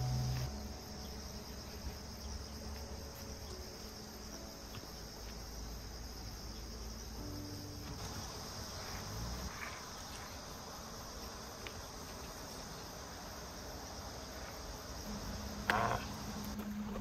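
A steady, high-pitched chorus of summer insects chirring, which cuts off abruptly near the end.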